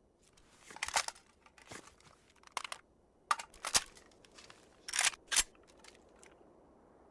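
Sharp metallic clicks and clacks of an AKS-74U assault rifle being handled, about seven of them spread over several seconds, the loudest pair about five seconds in.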